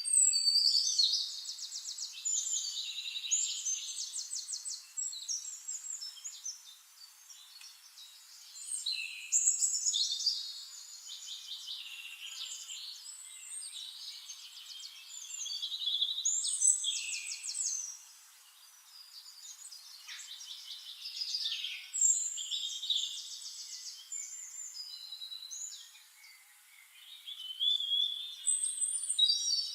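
Songbirds singing: phrases of rapid trills and short whistled notes, the loudest about every six seconds, with quieter song between them.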